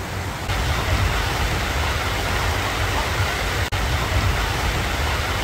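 Steady heavy rain pouring down, an even hiss with a low rumble beneath it; the sound cuts out for an instant about two thirds of the way through.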